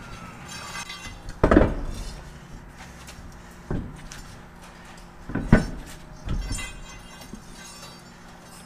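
Metal clanks and thumps from hands-on work on a heavy truck's wheel end. There are four separate knocks, the loudest about a second and a half in and again about five and a half seconds in, over a steady low hum.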